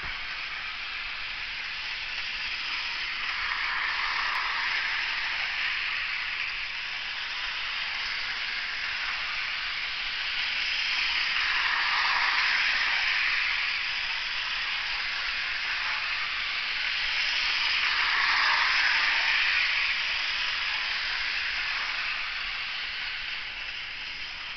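HO-scale model train running on sectional track: the steady whir of the Genesis MP15AC locomotive's motor and its wheels on the rails as it pushes a light-rail model. The sound swells three times as the train passes close by and fades away near the end.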